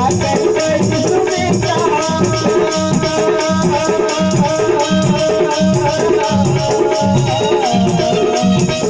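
Live devotional bhajan music: a harmonium holds steady chords, hand drums beat a fast, even rhythm, and a shaker rattles along with it.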